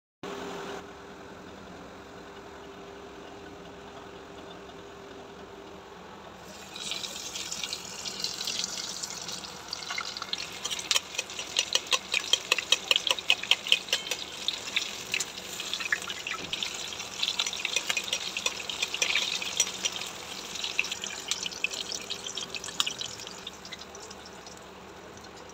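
Flour-coated chicken pieces sizzling and crackling as they deep-fry in hot oil in a wok. The dense popping starts about seven seconds in, is loudest a few seconds later and eases off near the end. Before it, only a faint steady hum.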